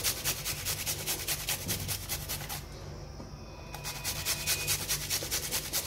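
Garlic clove grated on a flat metal hand grater: quick back-and-forth rasping strokes, about six a second, with a pause of about a second near the middle.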